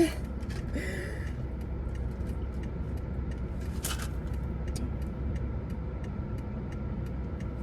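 Steady low rumble inside a parked car with the engine idling, with faint small clicks and a short rustle about a second in and another near the four-second mark.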